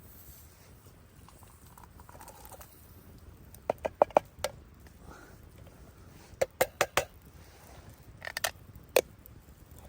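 Sharp knocks or clinks in three short clusters of a few strikes each, about four seconds in, again near seven seconds, and near the end.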